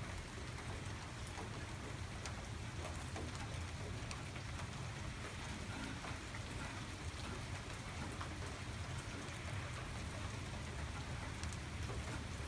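Steady rain falling on a lawn, street and puddles, a continuous hiss with scattered close drop ticks, over a low steady rumble.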